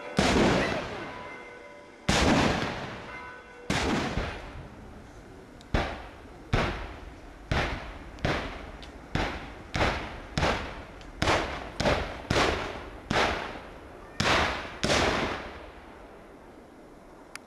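A string of black-powder arquebus shots fired one after another: about seventeen sharp bangs, each with an echoing tail. The gaps run from about two seconds down to half a second and are shortest in the middle. The shooting stops about two seconds before the end.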